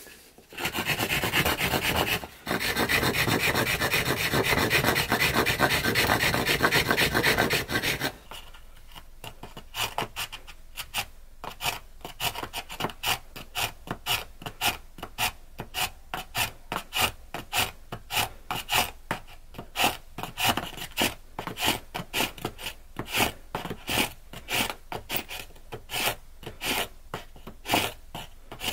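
Stone knife scraping into a spruce fire-drill hearth board, cutting the notch for the ember. It starts as a fast, continuous rasping that breaks off briefly about two seconds in, then changes after about eight seconds into separate scraping strokes at roughly two a second.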